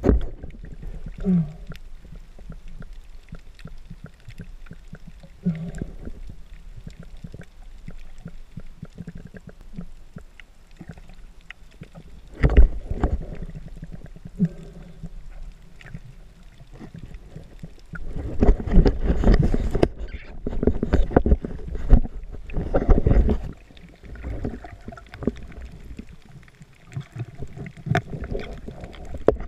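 Underwater sound picked up by a snorkeler's camera: a low, muffled water rumble, broken by louder bursts of rushing water and knocks, once about halfway and in a longer stretch a few seconds later.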